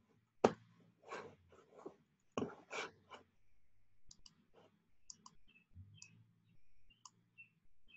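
Faint clicks of a computer mouse, single and in quick pairs, in the second half, after a few louder soft knocks in the first three seconds.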